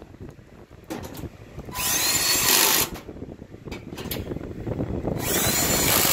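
Greenworks 24-volt cordless drill/driver with a nut-driver bit running in two spells, each starting with a rising whine as the motor spins up, while driving screws into the sheet-metal blower housing. Its mount holds the new blower motor. A few short clicks come between the two spells.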